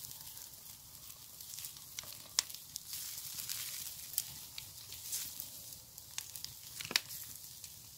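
Pork belly sizzling on a grill over an open bonfire, a steady high crackle with scattered sharp pops; the loudest pop comes about seven seconds in.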